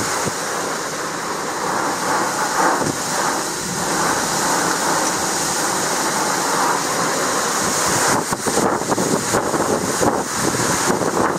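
Storm wind and driving rain, heard from inside a Land Rover Defender, with rain beating on the glass and body. From about eight seconds in it grows gustier and more uneven.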